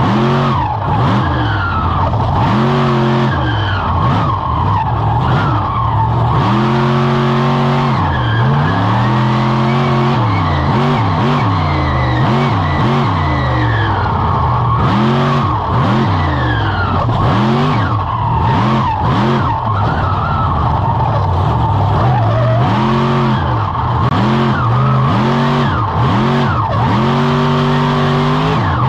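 Avenger monster truck's supercharged V8, heard on board, revving up and dropping off again and again in quick throttle blips with a few longer held pulls, as the truck is driven hard through a freestyle. Repeated sharp knocks cut through the engine noise.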